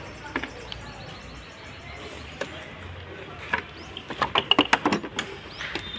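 Hand tools clicking and knocking on the plastic front panel and bolts of a car as the bumper is unbolted: a few scattered clicks, then a quick run of sharp clicks about four seconds in.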